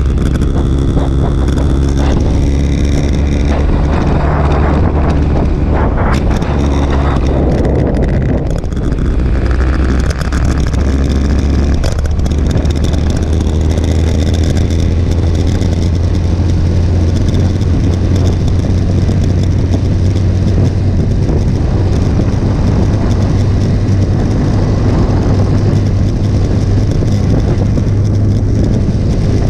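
Motorcycle engine running under way, heard from a mount on the bike together with wind rushing over the microphone. The engine note shifts a few times in the first several seconds and then holds a steady drone at road speed.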